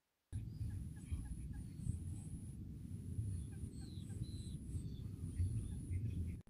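Outdoor field sound: several birds chirping and calling in quick short notes, with a thin high-pitched note that comes and goes, over a steady low rumble.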